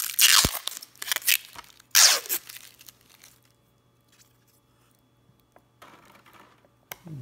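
Thick cellophane wrapping being torn and crinkled off small clear plastic divider pieces, in three sharp bursts over the first two and a half seconds. A faint rustle and a single click follow near the end.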